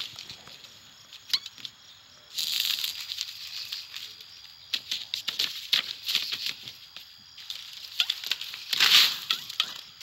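Animated-film sound effects of bugs: bursts of fluttering wings, one about two seconds in and the loudest near the end, among scattered small clicks and rustles.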